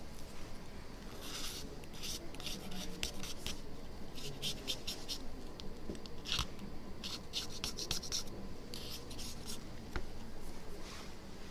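Blade scraping old adhesive off the glass surface of a phone LCD panel in clusters of short strokes.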